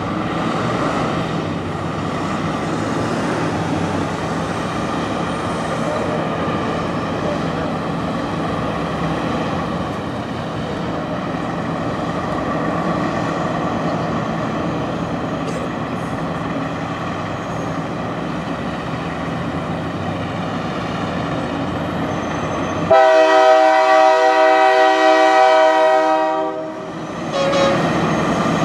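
Big-rig diesel engines running steadily as the trucks move off, then about 23 seconds in a truck-mounted train horn blows for about four seconds, a loud chord of several tones that is the loudest sound here, fading out near the end.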